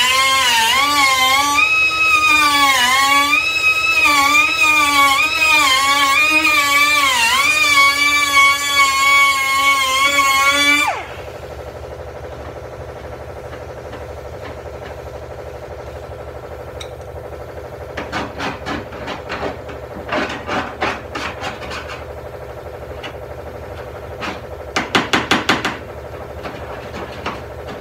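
Pneumatic cutoff tool whining as its wheel cuts through quarter panel sheet metal, the pitch dipping each time it bites, then cutting off suddenly about eleven seconds in. Later come two runs of sharp metal taps on the panel, the second a quick burst of about six.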